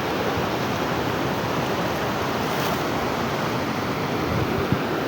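Floodwater rushing, a steady, even noise of moving water, with one short knock near the end.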